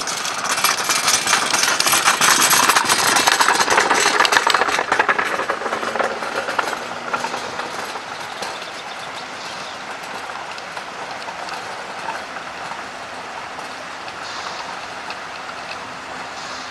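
Narrow-gauge steam locomotive pulling away, its exhaust and running clatter loudest in the first few seconds, then fading as it draws off into the distance.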